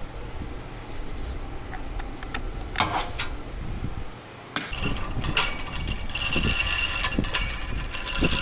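Metal hand tools clinking and knocking while a wrench works on the rear differential coupling's bolts. About halfway through, a tool starts running with a steady high whine over a rapid rattle and carries on to the end.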